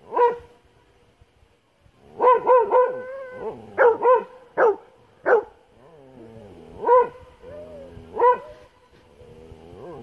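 A dog barking repeatedly in short, high-pitched barks, about ten in all, several coming in quick runs of two or three.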